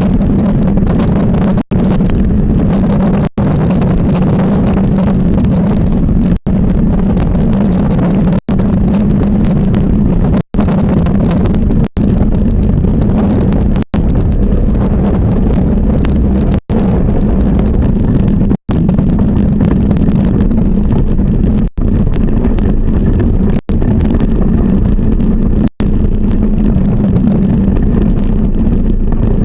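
Iceboat skimming over ice at speed: a loud, steady rumble from the runners with a rushing noise over it, broken by brief cutouts to silence every couple of seconds.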